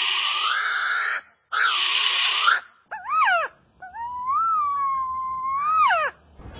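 Bird calling: two harsh, raspy calls, then a short wavering call and a long drawn-out wailing call that rises, holds and falls away.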